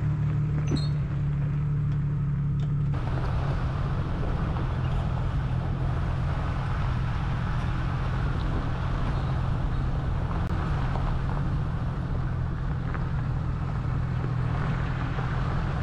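Jeep driving: a steady low engine hum with tyre and road noise. The noise gets louder about three seconds in, then holds steady.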